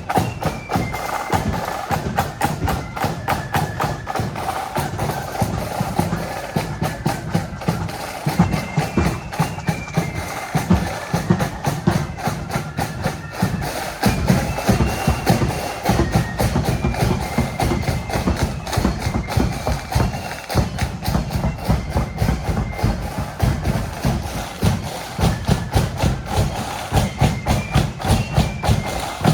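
Marching flute band playing a march: flutes carry a stepping melody over rapid snare-drum strokes and a steady bass drum.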